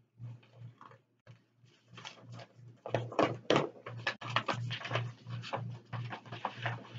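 Paper rustling and crinkling as bid documents are unfolded and shuffled by hand, faint at first and louder and busier from about three seconds in, over a low hum that pulses about three times a second.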